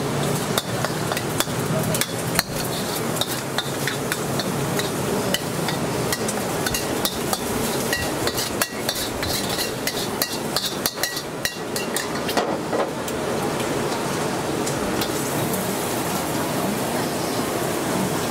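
A metal wok spatula knocking and scraping against a wok as fried rice is scraped out onto a plate: many quick clangs and scrapes that thin out about two-thirds of the way through, over a steady rushing noise.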